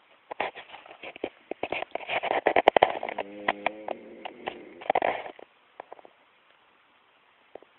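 Dense rustling and crackling clicks, loudest about two to three seconds in, with a single snore breaking through about three and a half seconds in.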